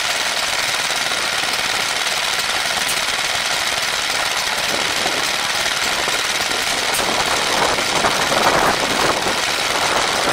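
Small vintage stationary engine running steadily with a fast, even chugging, driving a water pump. The sound gets a little louder about eight seconds in.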